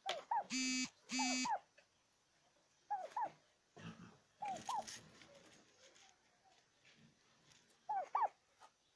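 Dog whimpering in short high cries that come in pairs, each rising then falling, repeated several times with pauses between. Near the start come two short, flat, buzzy tones, one right after the other.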